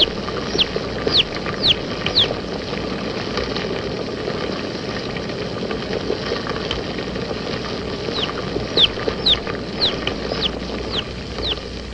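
A chick peeping: short, high, falling peeps about two a second, stopping for several seconds in the middle and starting again near the end, over a steady hiss and hum.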